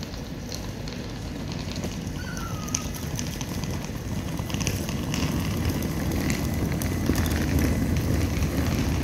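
Southern Class 377 Electrostar electric train pulling into the platform, its running rumble growing steadily louder as it draws near, with light crackling and clicks and a short high squeal about two seconds in.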